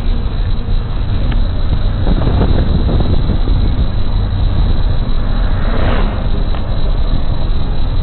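Steady low rumble of a moving car heard from inside the cabin, with a brief noisier swell about six seconds in.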